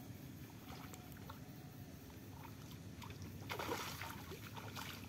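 A fish splashing and thrashing at the surface of the pond: one loud splash about three and a half seconds in, and a smaller one near the end.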